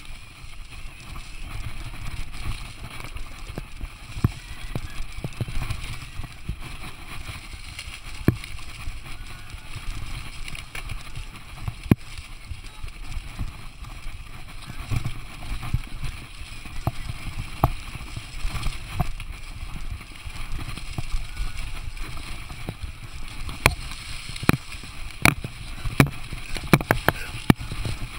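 Ibis Mojo HD mountain bike ridden fast over rough, overgrown singletrack: a steady rumble of wind and trail buzz on the mic, with sharp rattles and clicks from the bike over bumps, coming thick and fast in the last few seconds.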